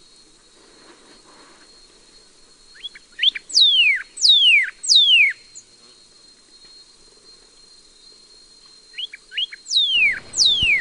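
Northern cardinal singing: two phrases of loud, steeply down-slurred whistles, each opened by a few short notes, the first about three seconds in and the second near the end.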